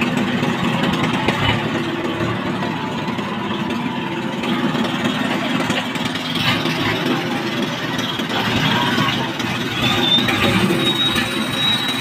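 Boat engine running steadily, with water splashing as tuna thrash in the hauled net. A thin high whine comes in near the end.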